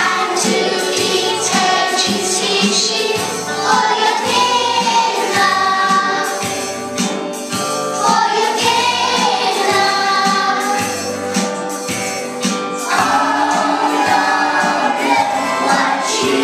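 A group of young children singing a song together, over musical accompaniment with a steady beat.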